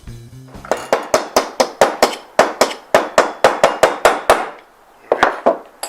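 Hammer striking metal in a quick run of about five blows a second, then two more blows after a short pause, during work on a drive shaft's U-joints.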